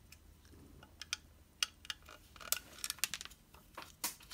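Irregular small clicks and a brief scrape of hand work on a diecast model car's plastic chassis as a screw is worked out of its underside.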